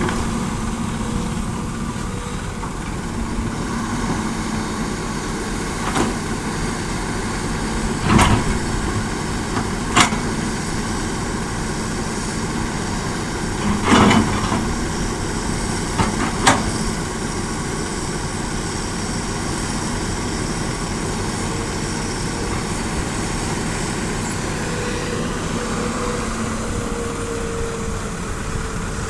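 Diesel engines of a hydraulic excavator and dump truck running steadily, with about six sharp knocks scattered through, the loudest about 8 and 14 seconds in.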